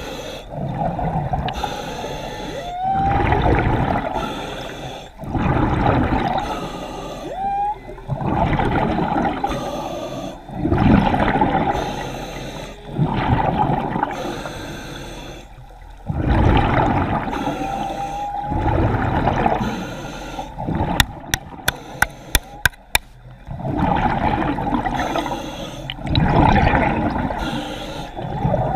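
A diver's breathing and bubbles underwater, rushing in regular surges about every two to three seconds. About three quarters of the way through comes a quick run of about eight sharp clicks.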